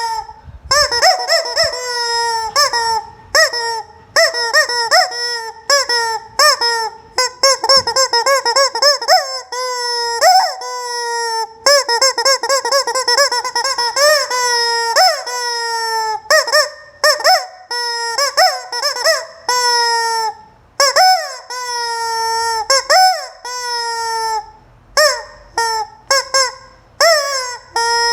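Rubber squeaky chicken toy squawking over and over as it is squeezed: dozens of short, shrill squawks, each bending in pitch, coming in quick runs with brief gaps between.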